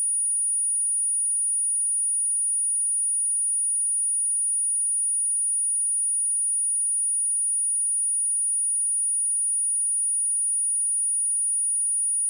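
A steady, unbroken 9618 Hz sine-wave test tone: a single high-pitched whistle with no other sound, played for speaker testing and for shaking water and dust out of a speaker.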